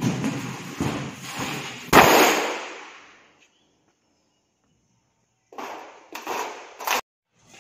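A large thin steel sheet wobbling with a rumble as it is lowered, then slapping flat onto the floor with a loud bang about two seconds in that rings and dies away over about a second. Near the end the sheet pops and clanks several times as it flexes under footsteps.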